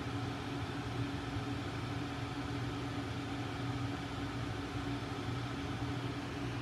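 Steady low hum of a running machine, with two constant droning tones and no change in pitch or level.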